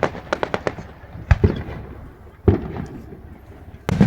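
Fireworks going off: a quick run of sharp crackling pops in the first second, then three separate louder bangs about a second apart, the last near the end.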